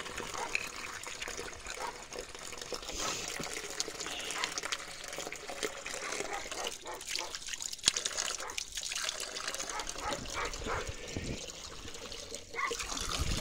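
Water running and trickling steadily, with the light knocks of plastic water jugs being handled and set down.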